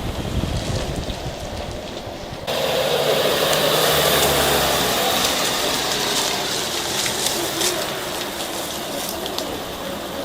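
Ambulance engine running with rushing road and wind noise, starting abruptly about two and a half seconds in, with a steady low hum for a few seconds after that.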